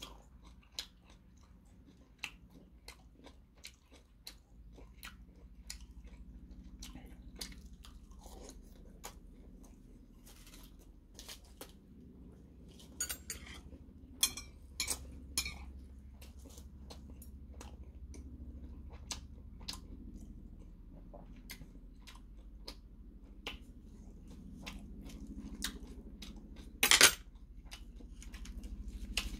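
Close chewing and mouth sounds of a person eating seaweed-wrapped pork belly and rice, with many small clicks and taps and a denser run of them about halfway through. A single louder sharp noise comes near the end.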